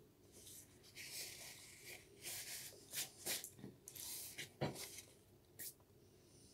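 Faint rustling and scraping with several sharp clicks and knocks: hands handling food and small objects on a table, between bouts of chewing.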